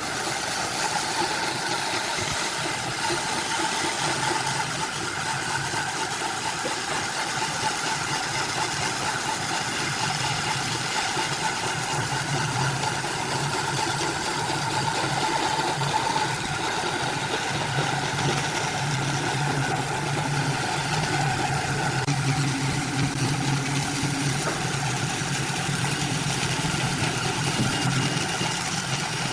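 A machine motor running steadily, an even hum that holds through the whole stretch without stopping or changing speed.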